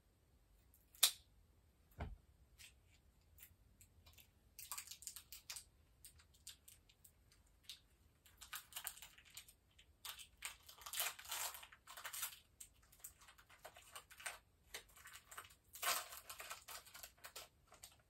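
Packaging being handled and opened in the hands, rustling in irregular spurts, with a sharp click about a second in and a dull knock about two seconds in.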